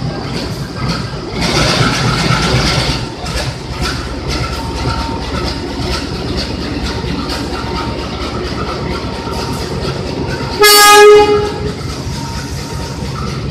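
CC203 diesel-electric locomotive running with a steady low rumble as it creeps past, with a brief rush of noise about two seconds in. About eleven seconds in comes one short, loud blast of the train horn.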